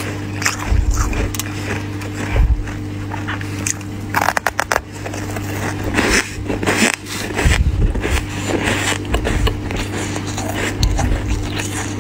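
Freezer frost crunching and scraping in irregular bursts, with a quick run of sharp clicks about four seconds in. A steady low hum runs underneath.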